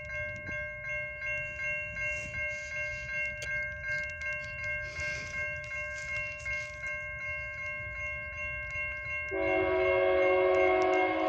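Railroad crossing warning bell ringing in a steady repeating pattern over a low rumble. About nine seconds in, the locomotive horn of an EMD SD60 comes in loud as a several-note chord and holds to the end.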